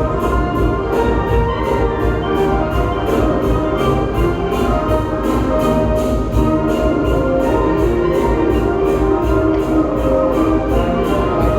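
Music with a steady, even beat and many held notes throughout, in a full orchestral-band sound.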